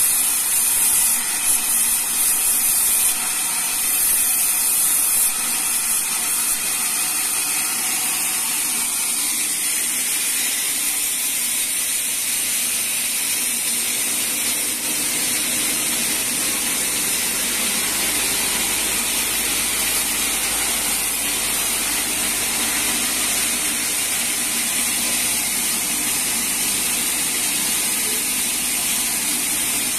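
Sawmill band saw running and sawing teak. It makes a loud, steady hiss that shifts slightly in tone about nine seconds in.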